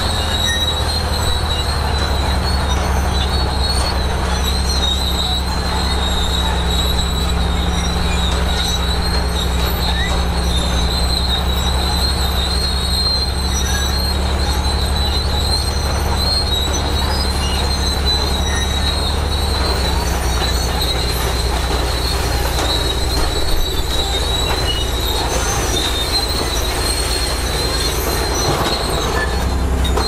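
Crawler bulldozer's diesel engine running steadily under load, with a constant high-pitched whine over it; the engine note changes about twenty seconds in.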